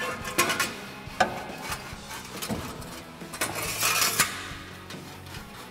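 Stainless steel exhaust tailpipe clinking and scraping as it is worked into its clamp by hand, with a few knocks early and a longer scrape near four seconds in. Background music plays underneath.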